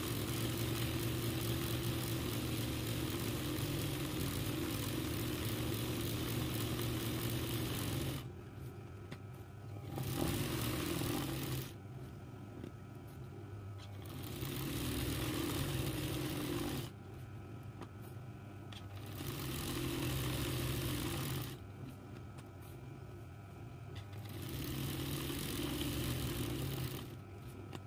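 RANEW 130 zigzag embroidery machine stitching steadily, then running in short bursts of two to three seconds with pauses between them as the hoop is moved by hand. A fainter steady motor hum continues through the pauses.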